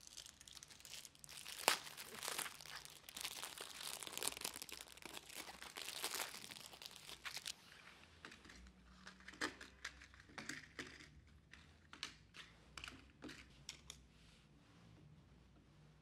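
A pack of matchboxes being unwrapped: its wrapping crinkles and tears for about the first seven seconds. Then come a series of separate short clicks and taps as the small cardboard matchboxes are set down one by one on the tabletop.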